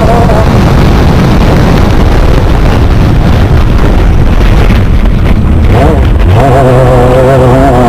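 Off-road race vehicle's engine running hard over rough ground, very loud, with heavy rumble and wind on the microphone. The engine note fades into the rumble for several seconds, then comes back about six seconds in with revs rising and falling.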